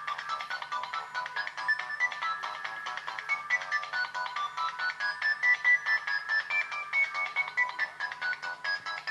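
An LG KS360 mobile phone playing a polyphonic ringtone: a fast melody of short synthesized notes in a middle-to-high register.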